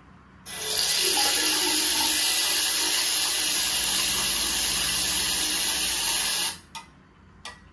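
Recorded sound of tap water running and filling a container, played back through a speaker. It is a steady rushing that starts about half a second in and cuts off abruptly after about six seconds, followed by two faint clicks.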